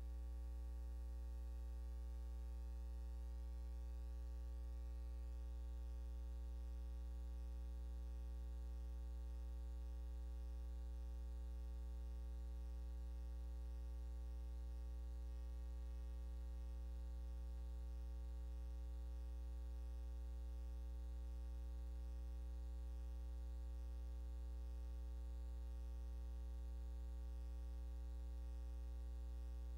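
Steady electrical mains hum with a buzz of its overtones and faint hiss, unchanging throughout; no other sound is on the track of this silent film.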